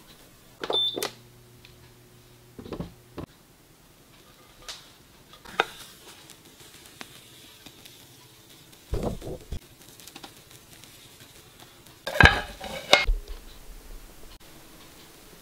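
Spatula clinking and scraping against a nonstick frying pan while souffle omelet batter is spread and folded: scattered short knocks, with the loudest clatter about twelve seconds in.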